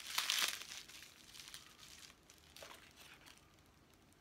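Clear plastic wrapping crinkling as it is handled and pulled off a small corked glass potion bottle, loudest in the first second and thinning to a few faint rustles.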